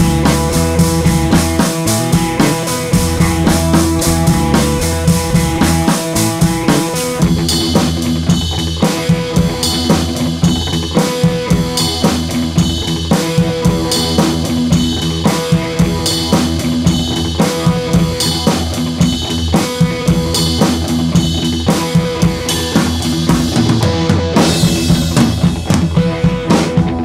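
Background music with a drum kit keeping a steady beat under sustained instrumental notes.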